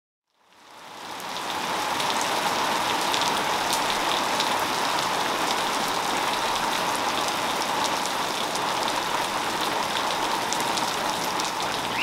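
Heavy rain falling steadily, with individual drops ticking through the hiss; it fades in over the first couple of seconds.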